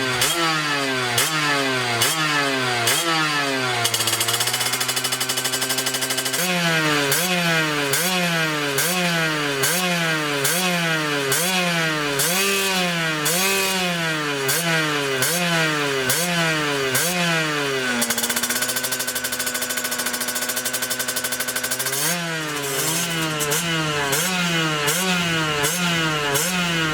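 Beta RR 50's 50cc two-stroke single-cylinder engine revved in quick repeated blips, about one a second, each rev rising sharply and falling back. Twice it drops to a steady idle for a few seconds before the blipping resumes.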